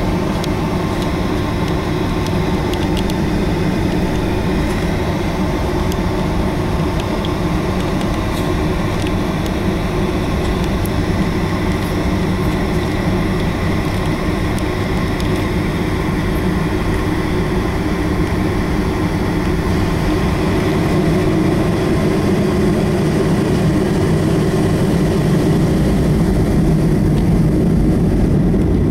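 Cabin noise inside a Boeing 757-223: its Rolls-Royce RB211 jet engines running with a steady hum and a rumble. The sound grows a little louder over the last several seconds.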